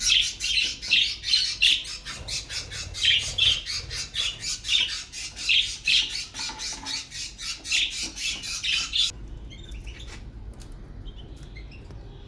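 A group of budgerigars (budgies) chattering with fast, dense chirps and squawks. About nine seconds in the loud chatter stops suddenly, leaving only faint, scattered chirps.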